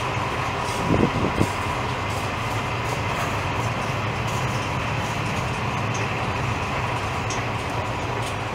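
Regional electric passenger train rolling slowly past: a steady rumble of wheels on rails with a faint steady whine. A few louder knocks come about a second in.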